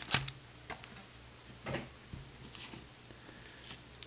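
Foil-wrapped trading card packs being set down and handled on a wooden tabletop: a sharp knock just after the start, then a few quieter taps.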